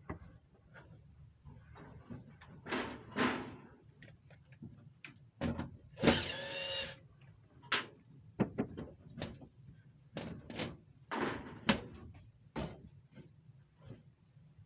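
Installation handling noises: scattered knocks, clicks and rustling from parts and tools being handled, with one louder, roughly one-second burst about six seconds in.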